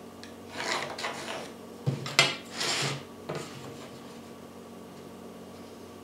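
Pencil scratching lines along a steel ruler on a plywood board, with the metal ruler sliding and clicking on the wood: several short scratchy strokes and a sharp click about two seconds in.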